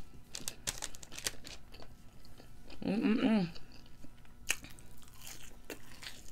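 Close-miked mukbang eating sounds: a person chewing a hot dog and fries with wet mouth clicks and smacks. About three seconds in comes a short, wavering hummed "mmm".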